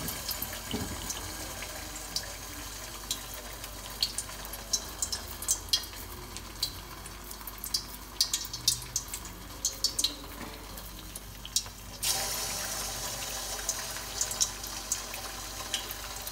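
Kubba deep-frying in hot oil in an aluminium wok: a steady sizzle with sharp crackling pops. About twelve seconds in, the sizzle gets louder as a second kubba goes into the oil.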